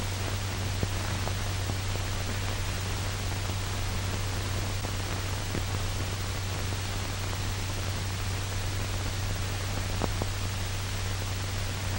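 Steady hiss with a low hum underneath and a few faint clicks: the background noise of an old black-and-white film's soundtrack.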